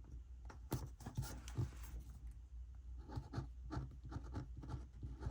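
Paper planner stickers being peeled from their sheet and pressed onto a paper page: short, faint scratchy rustles in two bunches, about a second in and again in the second half.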